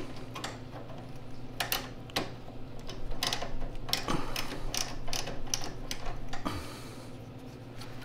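Ratchet wrench clicking in short, irregular strokes while the float-bowl nut on a Tecumseh engine's carburetor is snugged down, over a low steady hum.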